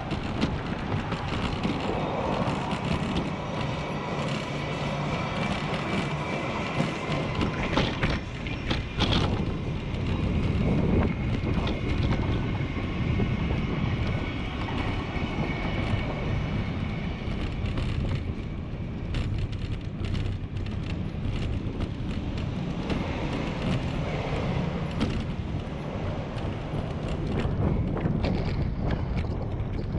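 A bicycle rolling over brick pavers: a steady rumble with a constant fine rattle of clicks from the tyres on the bricks and the bike shaking over them.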